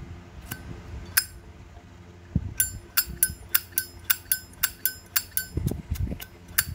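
A 2013 platinum-plated Zippo lighter's lid being flicked open and snapped shut over and over: sharp metallic clicks with a ringing ping, a few at first, then a steady run of about three a second from about two and a half seconds in. The click rings out, described as quite resonant.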